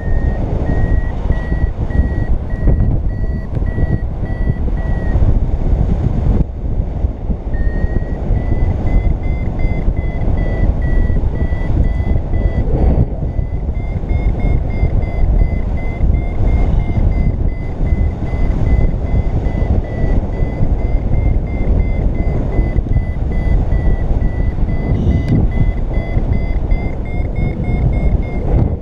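Paragliding variometer beeping in a run of short, even, high-pitched pulses that drift slightly up and down in pitch, the tone a vario gives while climbing in lift. It breaks off for a couple of seconds about five seconds in. Loud wind rushes over the microphone.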